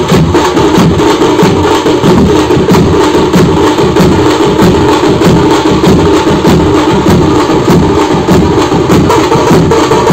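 Street drum band playing: large bass drums and smaller stick-beaten drums together in a loud, fast, steady rhythm.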